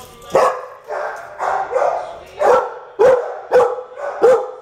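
A dog barking repeatedly in a shelter kennel, a run of sharp barks about every half second.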